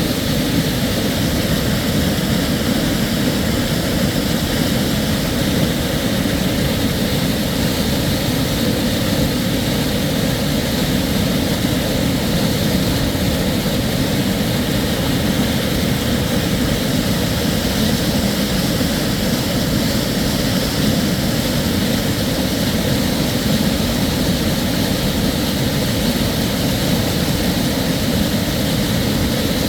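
A mountain-creek waterfall: water pouring over rock ledges in a steady, unbroken rush that neither builds nor fades.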